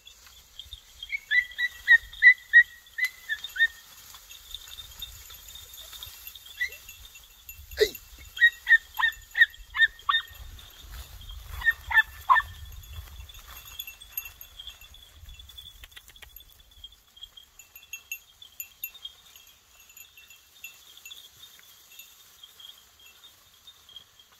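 Podenco puppies yelping on a scent, in quick runs of short high yips, three or four a second, in bouts about a second in and again around eight to twelve seconds in. A steady high insect chirring runs underneath.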